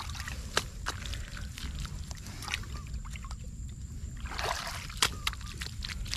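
Hands scooping wet mud out of shallow pond water and patting it down on the bank: squelching mud, sloshing and dripping water, with a louder slosh about four and a half seconds in.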